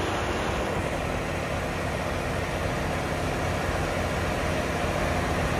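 Large diesel tractor engines idling steadily, the nearest being a Case IH Quadtrac 470's six-cylinder diesel, with no revving.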